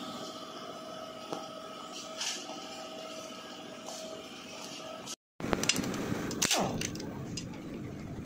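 Faint steady background hum. After a cut about five seconds in, metal hand tools (a spanner and a ratchet) clink and knock sharply against the Yamaha WR155 engine's parts as it is unbolted for disassembly.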